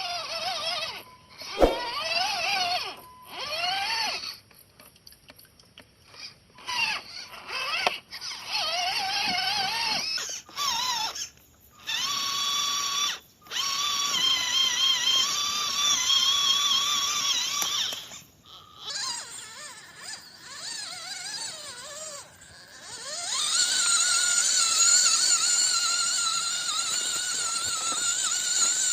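Electric motor and gearbox of a small RC off-road crawler whining, the pitch rising and falling with the throttle, in several short segments that break off abruptly. It settles into a steadier whine from about two-thirds of the way in.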